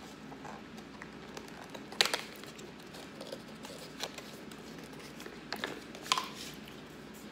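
Cardboard box being opened by hand: soft handling noise broken by a few sharp clicks and scrapes of the card. The loudest comes about two seconds in, with others near four seconds and two close together around six seconds.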